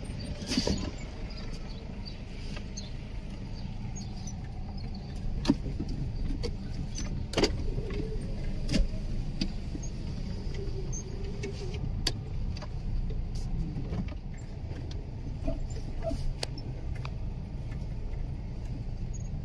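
Car driving, heard from inside the cabin: a steady low engine and road rumble with scattered sharp knocks and rattles.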